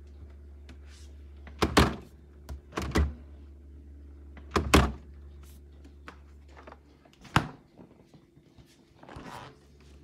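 Samsung RF44A5002S9 refrigerator doors being handled, giving several heavy thunks: two loud ones about two and three seconds in, the loudest near five seconds, and a sharper knock about seven seconds in. A low steady hum runs underneath and fades after the last knock.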